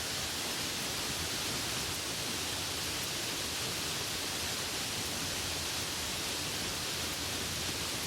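Steady rain, an even hiss of falling drops with no let-up.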